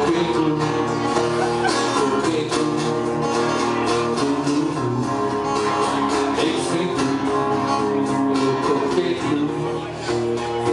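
Live music led by guitar, with strummed chords over sustained tones at a steady rhythm.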